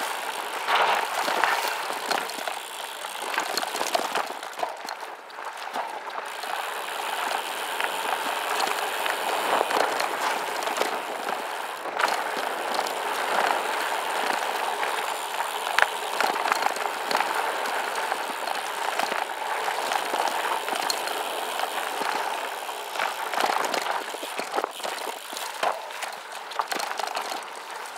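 SCOTT Addict Gravel 10 gravel bike descending a rocky dirt road: steady crunching and scrabbling of the tyres over gravel and rocks, with many sharp clicks and rattles as the bike jolts over bumps.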